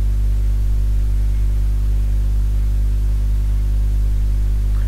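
Steady electrical mains hum, a low buzz with a stack of even overtones over a light hiss, unchanging throughout.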